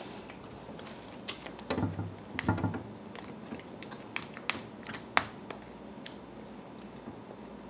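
Someone eating: chewing and mouth sounds, with scattered light clicks and scrapes of a plastic fork in a plastic food container. Two short hums come about two seconds in.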